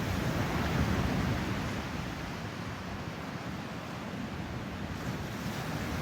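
Ocean surf breaking and washing in as a steady rush, easing a little midway and building again near the end, with wind rumbling on the microphone.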